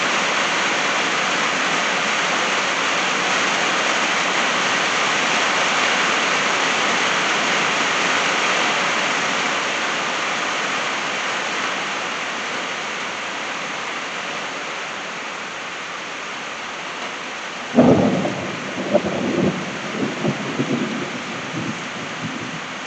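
Steady rain falling on a tin roof, slowly easing. About eighteen seconds in, a sudden crack of thunder rumbles on in several rolls for a few seconds.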